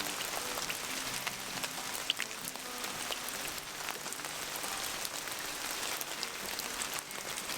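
Steady heavy rain falling in a temperate rainforest, with many separate drops striking close by.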